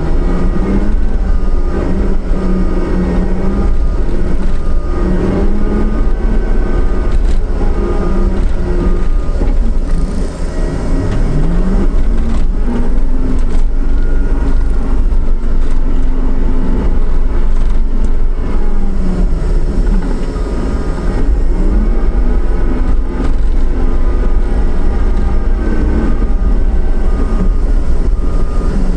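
John Deere 333E compact track loader's diesel engine running hard and working, its pitch sagging and recovering several times as the hydraulics take load, with one clear climb in revs about a third of the way through.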